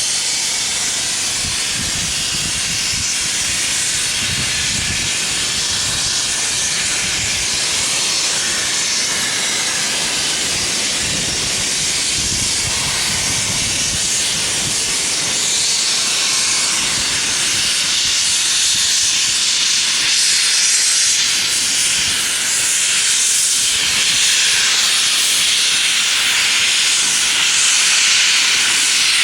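Steam locomotive letting off steam: a loud, steady hiss that sets in suddenly and runs on unbroken, growing a little louder towards the end.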